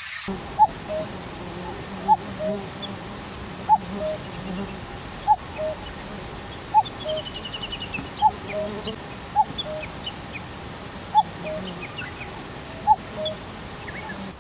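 A bird calling a low two-note phrase, the second note lower than the first, repeated about every one and a half seconds. Fainter, higher chirps from other birds sound in the background.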